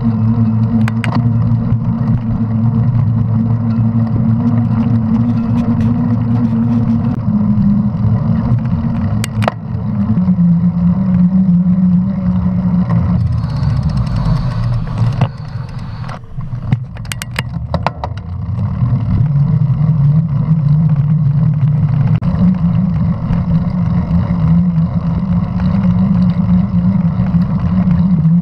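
Mountain bike tyres humming on paved path, with a steady low drone whose pitch drops and rises with the bike's speed. It goes quieter for a few seconds near the middle while the bike slows, with a few sharp knocks from bumps.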